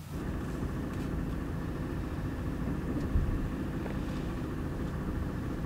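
Steady low rumble of a vehicle's engine and tyres heard from inside the cabin while driving.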